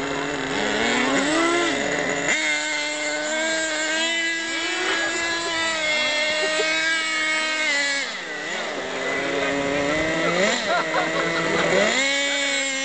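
Radio-controlled cars' small motors running, their buzzing pitch rising and falling with the throttle, with abrupt changes about two seconds in and near the end and a brief drop about eight seconds in.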